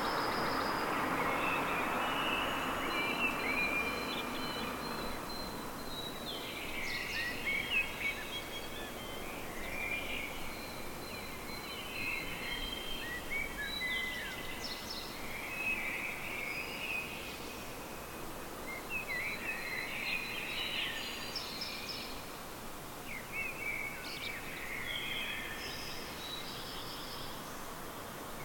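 A songbird singing at night: phrases of quick twitters and thin high whistled notes, repeated every few seconds with short pauses. A passing vehicle fades out during the first few seconds.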